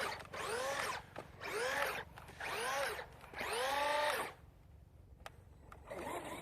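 Electric motor of a Traxxas Maxx RC monster truck whining in short throttle bursts, its pitch rising and falling with each blip, about four in a row. A pause follows, then another burst near the end.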